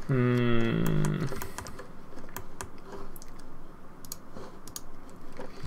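Computer keyboard keys tapped in scattered, irregular clicks. A short held hum from a man's voice comes just before, at the very start.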